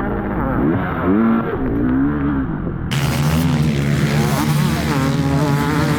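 Motocross bike engines revving, their pitch rising and falling as the throttle is worked. About halfway through, the sound cuts abruptly from a muffled recording to a clearer, brighter one with the engine notes held steadier.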